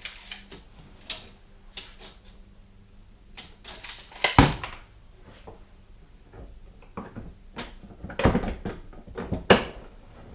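Scattered knocks and clanks from a half-inch solid rod being handled at a workbench. The loudest knock comes about four and a half seconds in, and two more come near the end.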